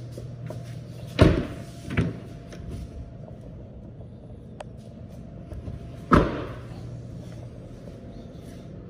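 Doors of a 2017 Chevrolet Silverado 1500 pickup being shut: two thumps close together about a second in, then another about six seconds in.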